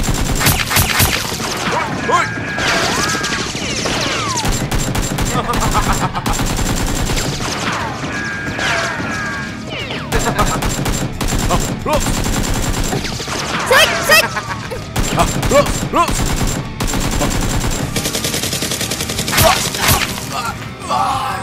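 Rapid volleys of gunfire from a Nerf blaster fight, many shots a second with short breaks between bursts.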